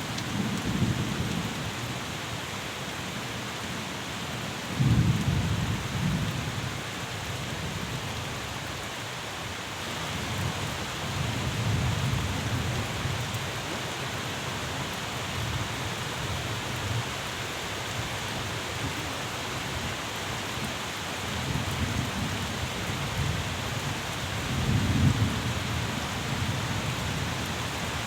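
Steady rain falling, with low rumbles of thunder that swell and fade several times, the strongest about five seconds in and near the end.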